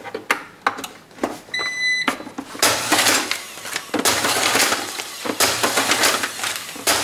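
Electric gummed-tape dispenser (Better Packages BP555e) giving a short electronic beep, then its tape feed running in three stretches of a little over a second each as it pushes out paper tape. A few light clicks come before the beep.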